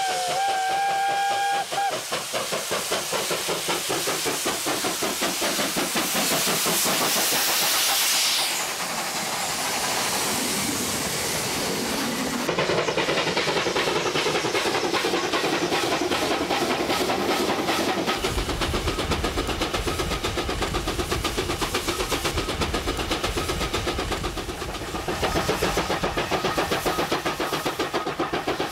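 Steam locomotive under way: a steam whistle blast that ends about two seconds in, then a fast, even beat of exhaust chuffs with hissing steam throughout, growing louder and closer in the last few seconds.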